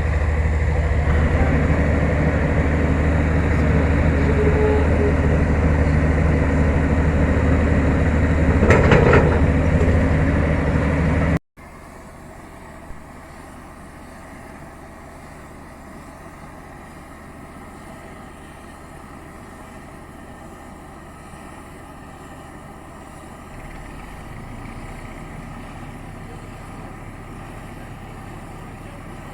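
A heavy diesel engine running steadily at close range, with a louder brief burst of noise about nine seconds in. After a sudden cut, a fainter, more distant engine drone runs on.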